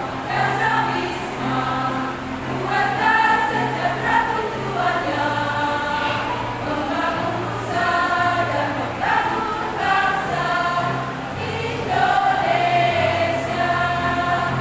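A choir of women's voices singing a song in parts over held low accompaniment notes.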